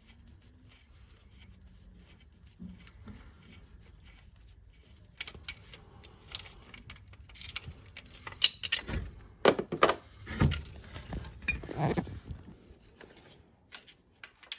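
Metal clinks and knocks of tools and loose engine parts as the second timing chain guide rail of a 1.2 TSI engine is worked free and taken out. Faint at first, then an irregular run of sharp clicks and knocks in the second half.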